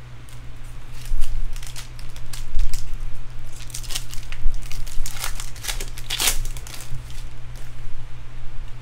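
Foil wrapper of a Bowman Draft jumbo card pack crinkling and tearing as it is ripped open, in irregular bursts that are loudest about four and six seconds in, over a steady low hum.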